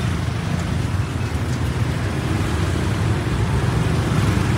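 Steady street traffic rumble.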